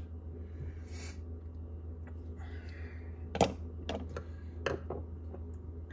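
Screwdrivers clacking against each other and the wooden workbench as a pile of them is rummaged through by hand: a few sharp clicks in the second half, the loudest about three and a half seconds in, over a steady low hum.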